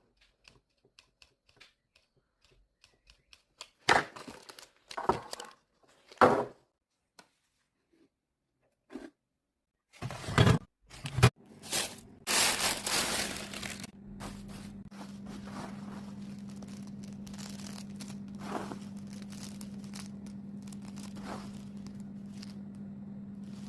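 Crinkling, tearing and scraping of handled kitchen items, then an electric motor that starts about halfway through and runs at a steady low hum.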